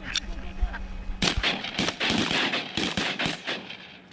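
A rapid volley of shotgun fire from several hunters at once, many shots overlapping, starting a little over a second in and lasting about two seconds.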